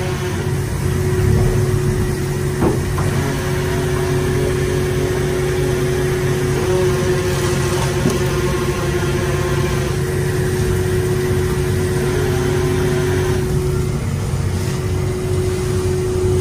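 An engine running steadily: a constant drone with a held hum tone over a dense low rumble, unchanging throughout.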